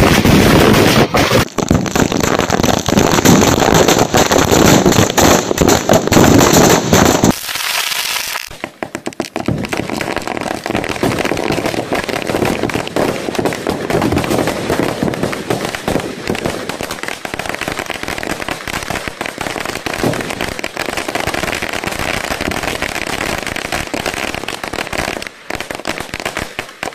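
A heap of mixed small firecrackers bursting together in a loud, dense crackle of rapid bangs for about seven seconds. This is followed by a quieter, continuous rattle of smaller pops that thins out near the end.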